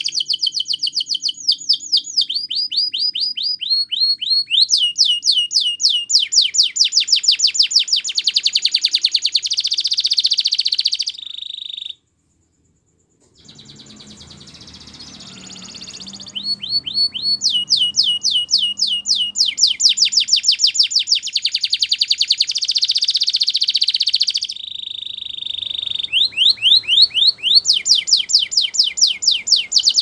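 Belgian canary singing long phrases of fast rolling trills made of high, rapidly repeated downward-sweeping notes. The song changes speed and pitch from tour to tour, stops dead for about a second and a half near the middle, and pauses briefly again later.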